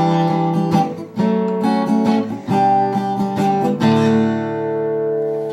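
Acoustic guitar strumming the closing chords of a song, then a final chord about four seconds in that is left to ring and fade.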